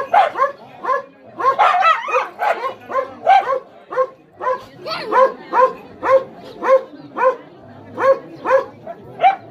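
Pahadi (Himalayan hill) dog barking steadily and without a break, about two to three barks a second.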